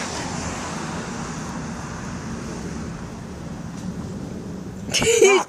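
Steady background noise with a low, even hum. A short high-pitched voice cry cuts in near the end.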